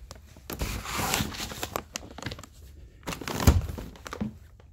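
Rustling and crinkling of firework packaging being handled, with scattered clicks and one sharp thump about three and a half seconds in.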